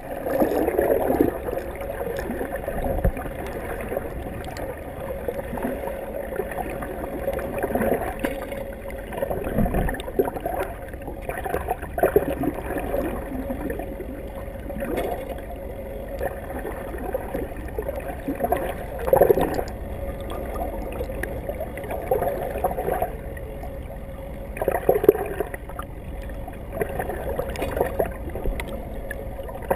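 Water rushing and gurgling around a camera held underwater, with a steady hum underneath and irregular louder surges every few seconds.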